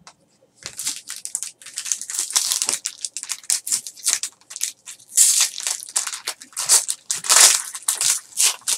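Foil wrapper of a 2013 Bowman Chrome baseball card pack being torn open and crumpled by hand: a dense run of crinkling that starts about half a second in.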